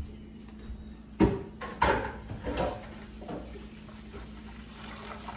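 Mesh straining bag full of wet blended coconut pulp being gathered, twisted and squeezed over a stainless steel bowl: a few short knocks and rustling scrapes in the first half, then quieter squeezing as the coconut milk starts to run out into the bowl.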